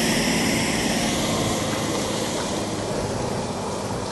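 Heavy diesel truck engine running steadily as the truck moves slowly on a dirt road, slowly fading.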